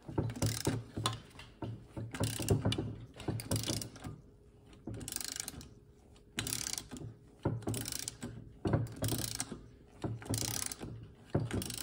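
Socket ratchet clicking in short runs about once a second, with a brief pause around the middle, as the puller's screw is wound down to free a seized motorcycle piston from its cylinder, which is moving.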